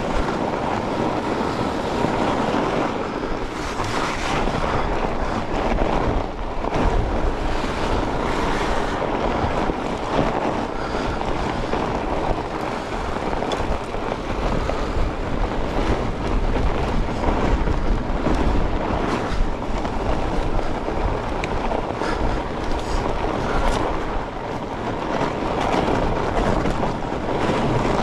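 Steady rush of wind on the microphone and fat-bike tyres rolling over a frozen trail, with scattered short knocks and rattles as the bike goes over bumps.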